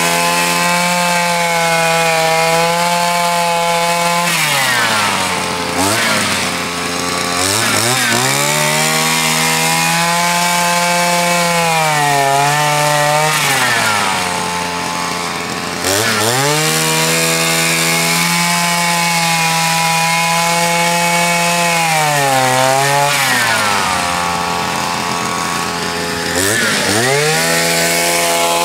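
Small walk-behind snow sweeper's two-stroke engine running at high revs while its rotary brush sweeps snow. It drops to idle for a few seconds three times, about four, thirteen and twenty-three seconds in, and revs back up each time.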